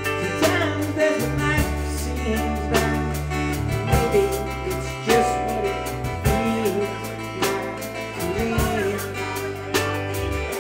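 Live band playing a song, with drums, bass and guitar. A lead melody slides up and down in pitch over held bass notes and sharp drum hits.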